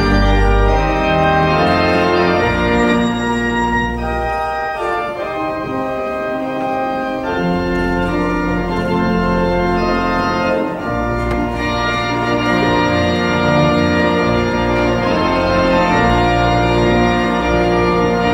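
Organ playing slow sustained chords over held bass notes. The bass drops out about four seconds in and returns about halfway through.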